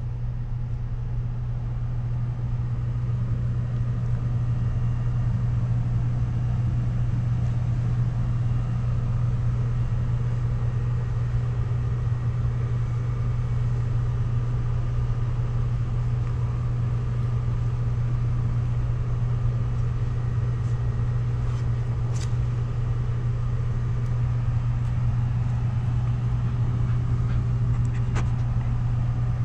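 Steady low mechanical drone of a running machine, unchanging throughout, with a few faint clicks late on.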